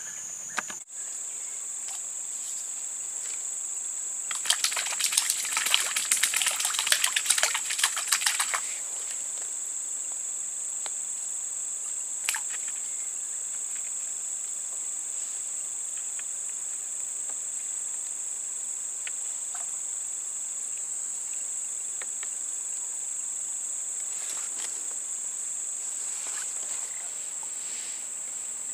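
Insects buzzing steadily at a high pitch. About four seconds in, a burst of rapid crackling clicks lasts about four seconds, and a single click comes near the middle.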